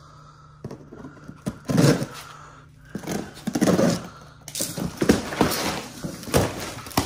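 Long cardboard shipping box being handled and shifted on a concrete floor: irregular scrapes and rustles of cardboard, with the loudest bursts around the middle and later part.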